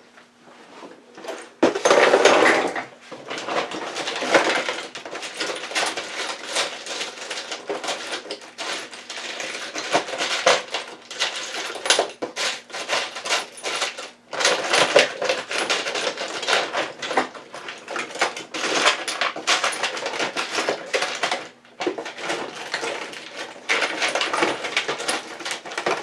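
Irregular clattering and crackling of hands handling the opened vacuum cleaner's parts and wiring, with a few short pauses.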